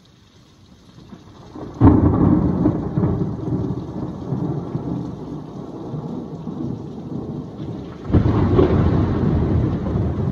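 Two thunderclaps over falling rain: the first breaks suddenly about two seconds in and rumbles on, slowly fading, for several seconds; the second breaks near the end.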